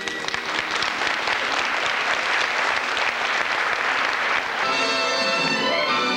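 Audience applauding, a dense patter of many hands clapping. About four and a half seconds in, it gives way to music with long held instrument tones.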